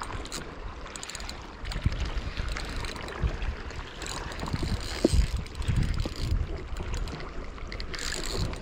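Wind buffeting the microphone over water sloshing against the rocks, with scattered short knocks and rubbing from hands working the rod and spinning reel while a hooked fish is played.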